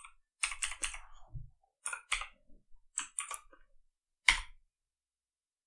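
Computer keyboard keys being pressed in short clusters of a few strokes, with one louder keystroke about four seconds in.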